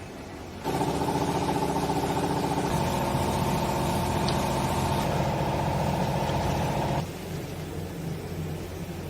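Hydraulic clothes baler's power unit running with a steady hum. It starts abruptly about a second in, shifts slightly in tone twice, and cuts off abruptly about two seconds before the end.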